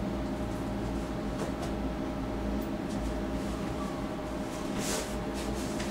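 Steady mechanical hum of room tone, made of several low steady tones, with a few faint clicks and a brief rustle about five seconds in.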